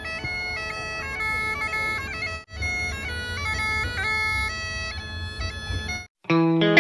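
Great Highland bagpipe played solo: steady drones under a chanter melody, with a brief break about two and a half seconds in. Shortly before the end the pipes cut off and different music starts.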